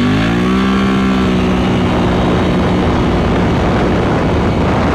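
Can-Am Outlander XMR 850's V-twin engine at full throttle from a standing launch. The revs climb quickly in the first second, then hold steady near 7,200 RPM while the quad keeps accelerating. This is the CVT's STM Rage primary clutch, tuned for about 7,300 RPM, keeping the engine at peak power as it shifts out. Heavy wind noise runs under the engine.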